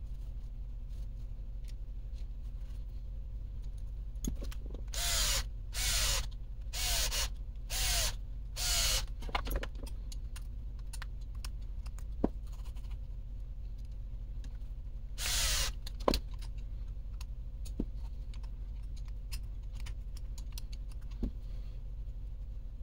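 Cordless drill/driver run in short bursts: five quick spins about a second apart, then one more several seconds later. Sharp clicks of small parts and tools being handled in between.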